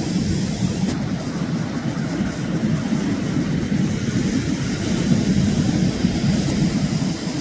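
Ocean surf breaking on the beach, a steady rumbling wash of waves.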